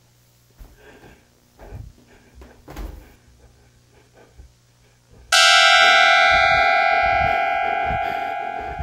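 A sudden, loud, harsh sustained tone of several steady pitches at once bursts in about five seconds in and slowly fades: a horror jump-scare stinger. Before it there is only a faint low hum with a few soft knocks.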